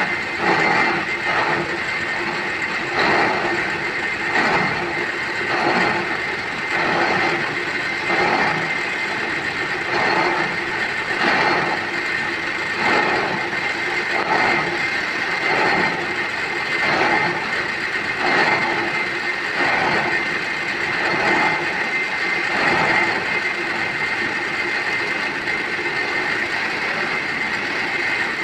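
Workshop machine running steadily with a regular knock a little under one and a half times a second.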